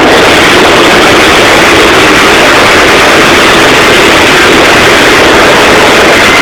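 Din of many car horns blaring together with engines revving, so loud the recording is overloaded into an almost unbroken wall of noise.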